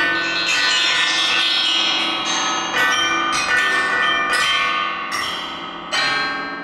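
Struck metal percussion ringing like bells in a live contemporary ensemble piece: several strikes, a fresh one near the start, two about three seconds in and the loudest about six seconds in, each left to ring and slowly fade so the tones overlap into a dense chord.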